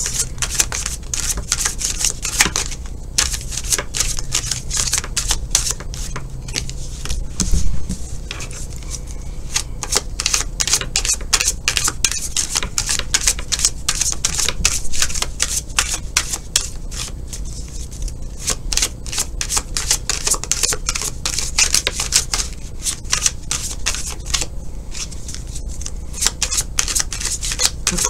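Tarot cards being shuffled by hand: a continuous run of quick clicks and slaps as the cards riffle against one another, with a soft low thump about a quarter of the way in.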